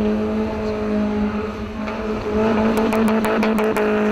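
Peugeot 206 GTI engine held at steady revs as the car manoeuvres, with a quick run of sharp clicks past the middle.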